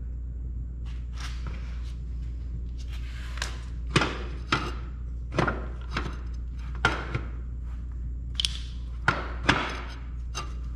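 Irregular metal knocks and clinks of tools against the parts of a Honda CB750 engine as a part is prised into line with a bolt hole, about a dozen sharp strikes over a steady low hum.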